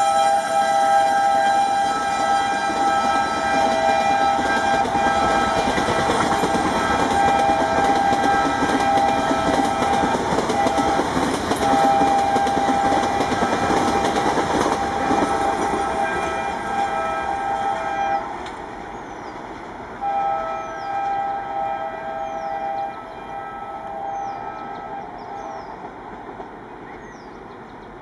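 WDM-3A ALCo diesel locomotive's horn sounding a long, steady two-note blast over the rushing and rail-joint clatter of a train passing at speed. The blast breaks briefly once near the middle and stops about 18 seconds in. About 20 seconds in the horn sounds again in two shorter, quieter blasts as the train draws away.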